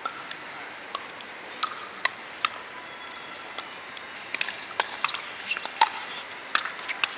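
Pickleball play: paddles popping against hard plastic balls and balls bouncing on the court, heard as sharp, irregular pops. There are a few in the first half, and they come faster from about four seconds in.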